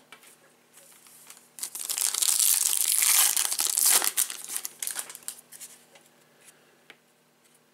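Plastic trading-card pack wrapper being torn open and crinkled by hand. The crinkling is loudest for a couple of seconds, then thins to a few scattered rustles.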